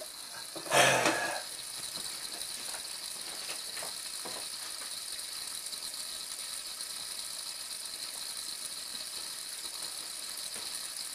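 A broken sink making its annoying noise: a steady high-pitched hissing rattle, with a brief louder burst about a second in.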